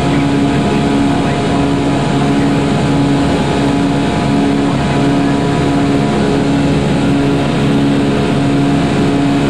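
Steady flight-deck noise of an Airbus A340 in its climb after takeoff: an even rush of airflow and engine noise with a low hum that comes and goes about once a second.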